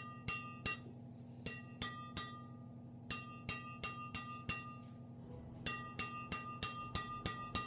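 Strings of a Yonex Voltric Z-Force II badminton racket, BG66 Ultimax strung at a tight 30 lbs, struck over and over: each hit gives a sharp, high, ringing ping. The strikes come in quick runs of three, three, five and then seven.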